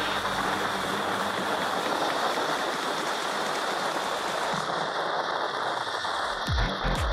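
A steady rushing hiss, its brightest top end dropping away a little after halfway, then deep, falling bass beats of electronic music come in near the end.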